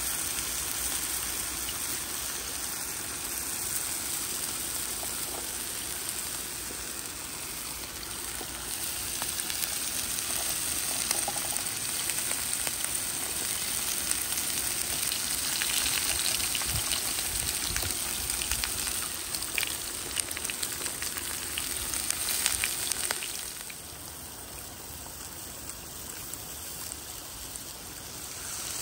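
Beef steaks and garlic sizzling in oil on a hot grill pan, a steady crackling hiss thick with small spattering pops. It drops to a quieter hiss about 24 seconds in.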